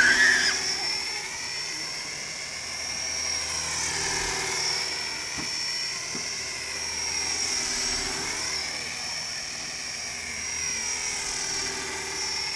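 Radio-controlled model helicopter flying in the air, its rotor and motor whine with a steady high tone. The pitch sweeps down and back up several times as it passes back and forth, with a louder close pass at the very start.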